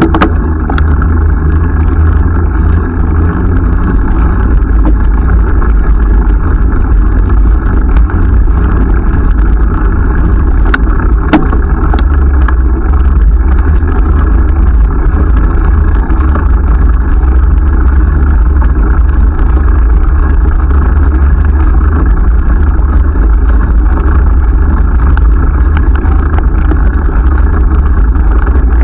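Wind buffeting the microphone of a camera riding along on a moving bicycle: a loud, steady rumble with a few sharp clicks.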